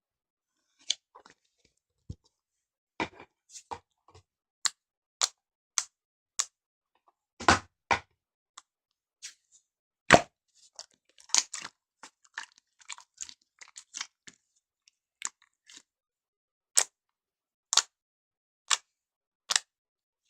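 Slime being handled and pressed, giving a string of sharp sticky clicks and pops, scattered at first, crowding together in the middle, then coming singly about a second apart near the end.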